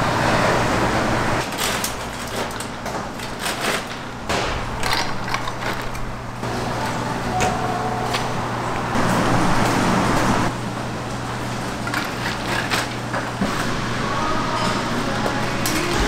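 Shells and kitchen utensils being handled, giving scattered clicks and clatters over a steady low hum.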